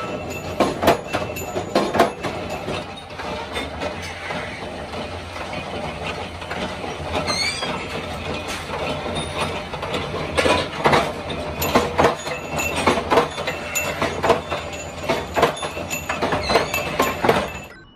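Flywheel-driven power press shearing steel bar into short rods, with repeated metallic clanks over steady machine running noise. The clanking is densest near the start and in the second half, and there is a steadier stretch in between. The sound cuts off abruptly near the end.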